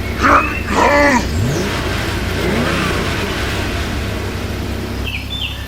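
A tractor engine runs with a steady low hum and revs up briefly about a second and a half in. Short pitched cries come near the start, and birds start chirping near the end as the engine sound stops.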